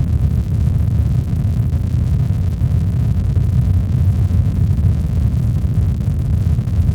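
Steady, unbroken sleep-aid noise of the deep, rumbling kind: most of its weight is low in pitch, with only a faint hiss above.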